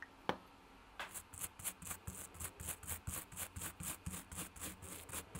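Toothbrush scrubbing the teeth of a model locomotive's worm drive, quick back-and-forth bristle strokes about four to five a second, starting about a second in after a single light click.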